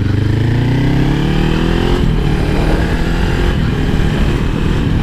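Kawasaki Ninja 400 parallel-twin engine through a Fuse Racing slip-on exhaust, pulling in sixth gear: the engine note rises in pitch for about two seconds, then turns into a rougher, steady low rumble.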